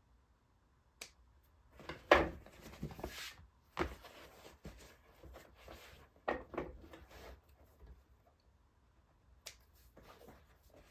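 Scissors snipping loose threads off a leather-and-fur mitt, with the rustle and rub of the leather as it is turned and handled on a wooden table. A sharp snip about a second in, then scattered bursts of handling noise, the loudest about two seconds in.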